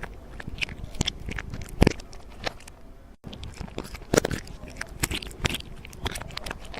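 Irregular crunching and clicking, with a brief break a little past three seconds.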